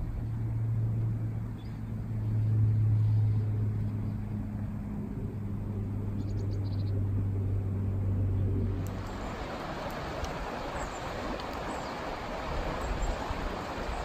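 A low, steady engine hum from a distant vehicle, with a few faint bird chirps. About two-thirds of the way through it changes suddenly to the even rushing of a river flowing.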